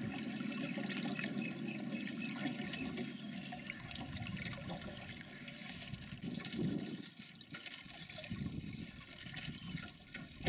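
Water sloshing and trickling in uneven swells, with a faint steady high hum above it.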